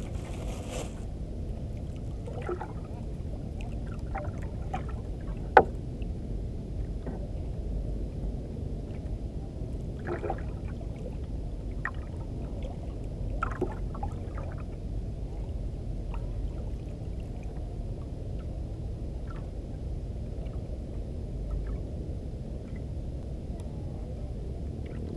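Water lapping and gurgling against a small fishing boat's hull over a low steady rumble, with scattered light knocks and clicks, and one sharp knock about five and a half seconds in.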